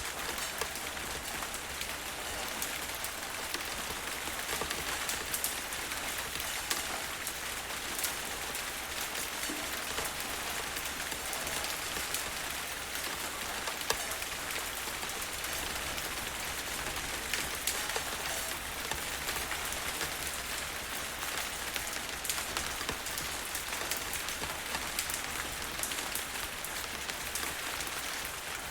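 Steady heavy rain falling, a dense even hiss with scattered individual drop ticks.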